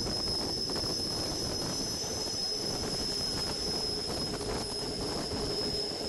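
Rhaetian Railway Bernina line train running round a tight curve, heard from on board, its wheels squealing steadily at a high pitch over the rumble of the running gear. A lower steady tone joins in about halfway through.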